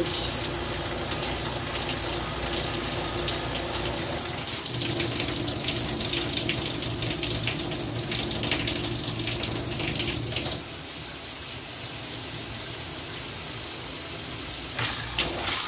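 Water spraying from a Waterpik PowerPulse handheld shower head, a steady hiss that changes character about four seconds in and drops in level about ten and a half seconds in as the spray pattern changes. A few sharp clicks come near the end.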